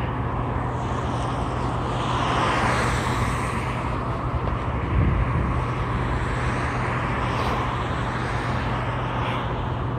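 Steady road traffic noise from the street, with a constant low hum and a vehicle passing by about two to three seconds in.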